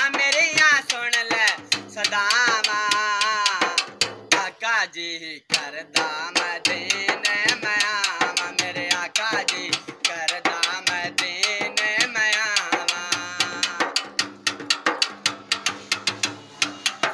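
A man singing a Punjabi naat in a high, strained voice while beating a steel-shelled drum slung from his shoulder. The drum keeps a quick, even beat, and the strokes come thicker in the second half.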